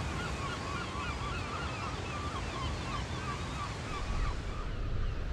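Gulls calling in a quick run of short, wavering calls over steady surf and wind, the calls stopping about four seconds in.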